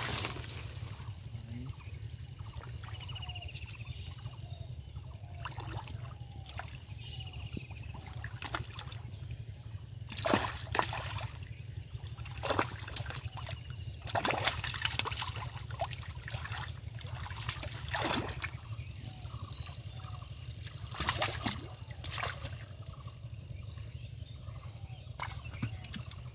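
Hands groping and splashing in shallow muddy water while feeling for fish, with scattered short splashes and sloshes, the loudest in a cluster through the middle.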